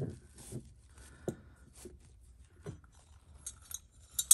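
Soft rustling and small clicks as a ribbon-tied organza drawstring bag is untied and pulled open around a small decorated cauldron. About four seconds in there is one sharp clink, the loudest sound, with a faint ringing after it.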